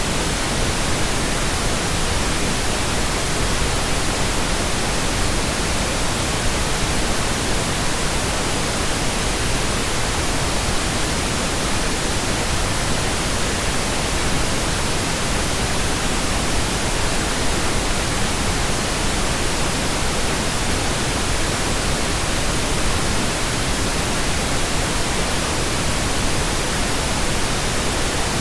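Steady synthetic pink noise generated in Audacity: an even, unchanging hiss across all pitches, fuller in the low end than white noise.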